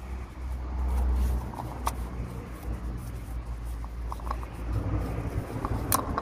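A few small clicks and rubbing sounds as gloved hands handle a plastic oil filter housing cap, over a steady low rumble that is strongest for the first second or so.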